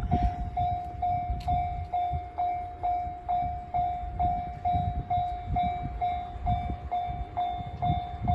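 Japanese level-crossing warning bell ringing at about two strikes a second, over the low rumble of a 213 series electric train running through the crossing.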